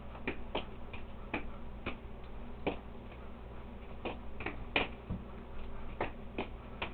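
Juggling balls being tossed and caught, each catch a short sharp slap in the hand, at an uneven pace of a few a second, over a steady low hum.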